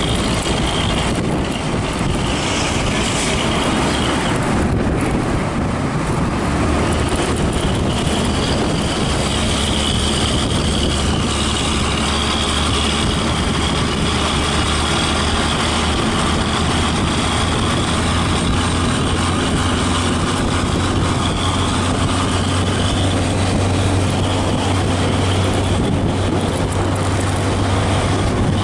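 Steady low engine drone of a coach bus driven close ahead and alongside, mixed with tyre and road noise. The low drone grows stronger a few seconds in.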